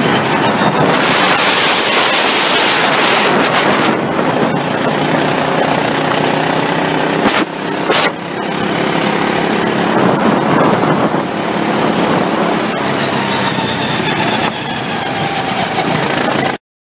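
Go-kart engine running hard, heard from on board the moving kart with a rush of wind and track noise. There are two short clicks with dips in level about seven and a half and eight seconds in, and the sound cuts off suddenly near the end.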